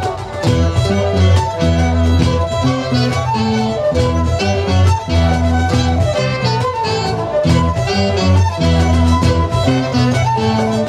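Live folk band playing an instrumental tune: fiddles carry the melody over strummed acoustic guitars, with saxophones, trombone and hand drums (djembe and cajon) keeping a steady beat.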